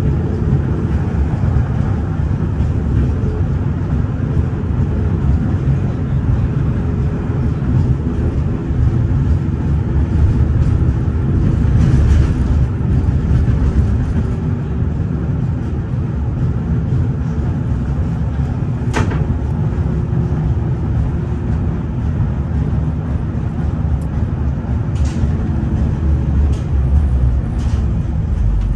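LVS-86K (71-86K) tram running along the track, heard from inside the car: a loud, steady low rumble of wheels on rails with a steady hum over it. A single sharp click about two-thirds of the way through, and a few fainter clicks near the end.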